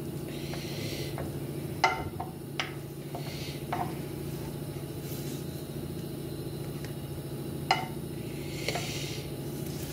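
A steady low kitchen-appliance hum, with a few light clinks of crockery and utensils and two brief rustles as a roast chicken on a plate is handled with an oven glove.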